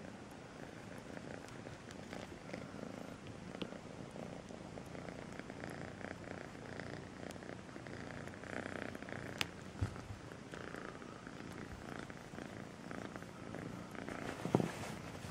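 Kitten purring steadily and continuously, with a few brief knocks, the loudest near the end.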